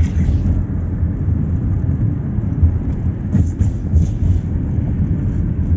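Car engine and road rumble heard from inside a moving car, steady and low, with a few short knocks around the middle.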